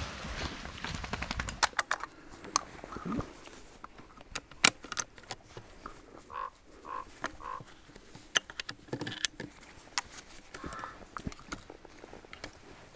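Twigs and dry branches snapping and crackling underfoot and against the body, with rustling through leaf litter and undergrowth: a stalker pushing through woodland cover while getting a shot roe doe out. A run of sharp cracks, the loudest a little before the middle.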